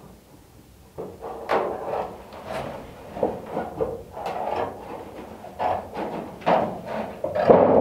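A large thin sheet of 20 oz copper being unrolled and handled on the floor, flexing with irregular knocks and scrapes that start about a second in and grow louder near the end.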